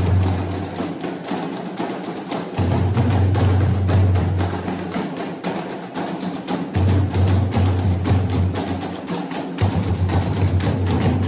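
Marching drum corps of snare, tenor and bass drums playing a cadence, with dense, rapid drum strokes. A deep low sound swells in and out in stretches of two to three seconds.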